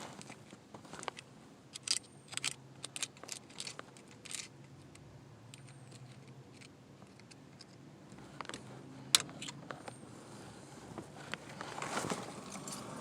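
Small metal tools clicking and scraping against a steering column's snap ring and lock plate as a pick works the ring loose: a quick run of sharp ticks for the first few seconds, a few more later, and a scrape near the end.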